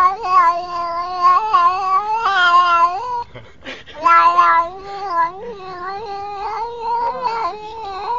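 A black-and-white domestic cat yowling in long, drawn-out, wavering calls. One call breaks off about three seconds in, and a second begins a moment later, pitched a little higher and climbing toward the end.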